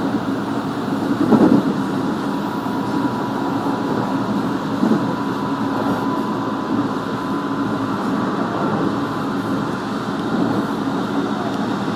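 Inside a JR 223-series electric train running along the line: a steady rumble of wheels on rail, with a faint steady whine in the first half and two brief knocks, about a second and a half in and near five seconds.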